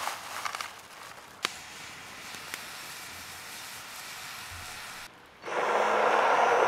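Chanterelles frying in a pan over an open campfire: a steady sizzling hiss with a few small crackles, after a second of crackly rustling and a sharp click. Near the end a much louder, dense steady hiss cuts in.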